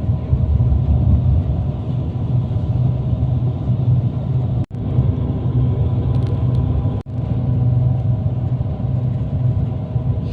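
Steady low rumble of a moving vehicle heard from inside, with a faint steady hum over it; the sound drops out for an instant twice, about four and a half and seven seconds in.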